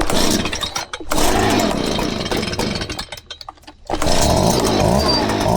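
Stihl BG 65C leaf blower's small two-stroke engine being started on choke after a primer bulb replacement. It fires and runs in short bursts over the first three seconds, sputters, then catches about four seconds in and keeps running.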